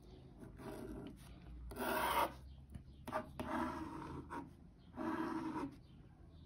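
A pen drawing straight lines on paper, boxing off handwritten formulas: a scratchy rasp in several separate strokes of about half a second each.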